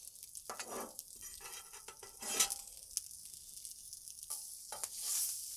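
Fried rice sizzling on a hot Blackstone flat-top griddle as a metal spatula scrapes it up off the steel surface a few times, over a steady hiss of sizzling.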